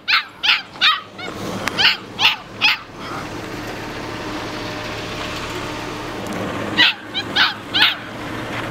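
Six-week-old puppy yipping in a quick series of short, high-pitched yelps, about six in the first three seconds, then a pause and three or four more near the end.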